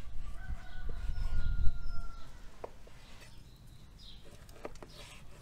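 Kitchen knife slicing fat-tail lard on a wooden cutting board, with a few light knocks of the blade on the board in the second half. A low rumble is loudest in the first two seconds, and small birds chirp near the end.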